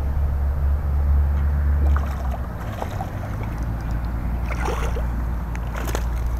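Low wind rumble on the microphone, loudest in the first two seconds, with a hooked largemouth bass splashing at the water's surface a few times from about two seconds in.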